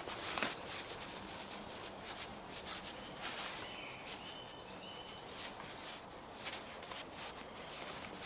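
Outdoor woodland ambience with scattered light rustles and small knocks, and a few short bird chirps about four to five seconds in.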